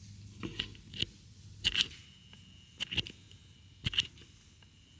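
Footsteps crunching through dry fallen leaves, about five steps roughly a second apart.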